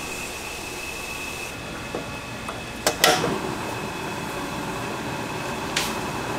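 A pan of tteokbokki is set onto a portable tabletop gas burner: a couple of sharp metallic clicks about three seconds in, followed by a short rush and a steady hiss, over a constant hum with a high whine. Another single click comes near the end.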